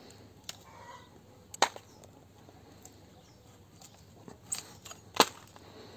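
A sharp kitchen knife cutting bracket fungus off a fruit tree's bark: a few light scrapes and ticks, with two sharp clicks, one about a second and a half in and a louder one about five seconds in.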